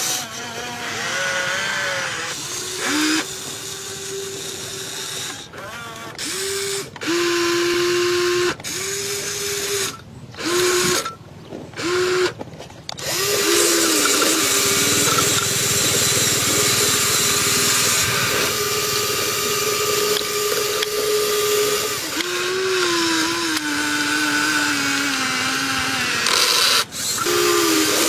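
Small electric gear motors of a toy RC excavator whining as it works: short on-off bursts through the first half, then running almost continuously, the pitch sagging briefly a few times under load.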